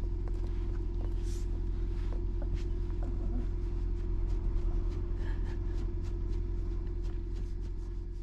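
Steady low rumble of road and engine noise inside a moving car's cabin, with a constant hum over it.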